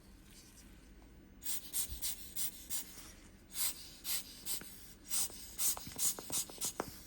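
A quick run of short puffs of air, about two or three a second, beginning over a second in, blowing dust off the watch's LCD and case parts.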